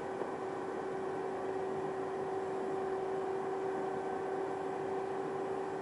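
Inside a moving Ou Main Line local train: a steady running rumble with a steady whine that stops near the end.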